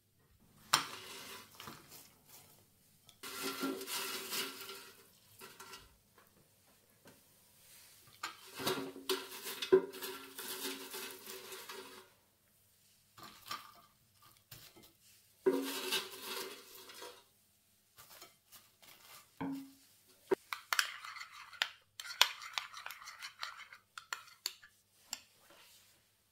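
Metal serving tongs scraping and clinking against a pan and plates as fries are served, in several separate bursts, with a run of quick clinks from a spoon scooping sauce near the end.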